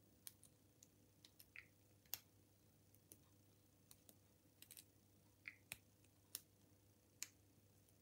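Faint, irregular metallic clicks and ticks of a bobby pin picking the pins inside an Atom padlock while a second bobby pin holds tension on the plug. A couple of short squeaks of metal scraping come from the pick in the keyway.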